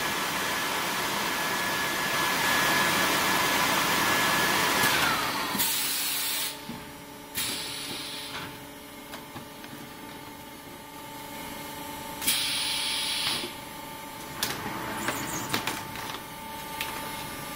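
Vacuum thermoforming machine running: a steady rush with a high whine that glides down and fades about five seconds in. Then a quieter hum with several short bursts of hiss, and a few clicks near the end.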